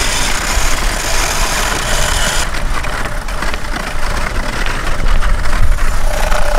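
Wind rumbling on the microphone over the hiss of a wooden dog sled's runners gliding on snow. The high hiss thins out about two and a half seconds in, while the deep rumble carries on unchanged.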